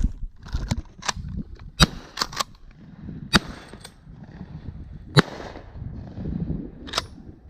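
Shotgun shots popping at irregular intervals across a dove field, about nine in all and of varying loudness, the three loudest about two, three and a half and five seconds in. Wind rumbles on the microphone underneath.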